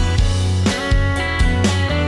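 A live rock band playing an instrumental intro: the drum kit keeps a steady beat under strummed acoustic guitar, electric bass and electric guitar.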